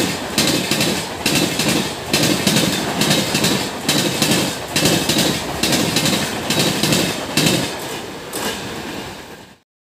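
Indian Railways passenger coaches rolling past at speed, their wheels clattering over the rail joints in a steady rhythm of about two beats a second. The clatter eases a little as the last coach goes by, then cuts off abruptly near the end.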